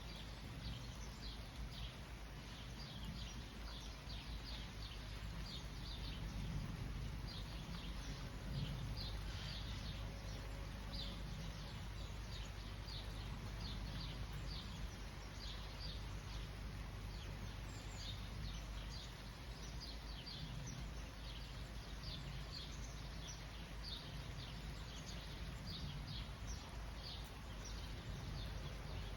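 Steady rain falling, an even hiss, with a bird repeating short high chirps about twice a second over it.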